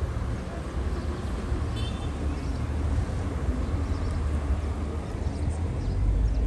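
Steady low rumble of road traffic, with one brief high chirp about two seconds in.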